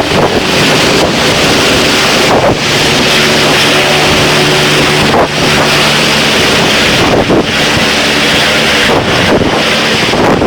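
EMERCOM rescue helicopter's engine and rotor running loudly and steadily, with wind buffeting the microphone.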